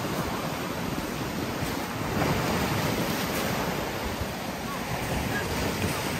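Sea surf breaking and washing against shoreline rocks, a steady rushing wash with a deep rumble, with wind buffeting the microphone.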